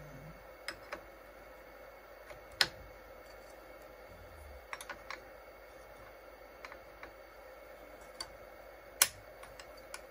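Scattered metallic clicks and clinks of two steel open-end wrenches on a router's collet nut and shaft, being fitted and worked to loosen the nut. There are two louder clanks, about two and a half and nine seconds in, over a faint steady hum.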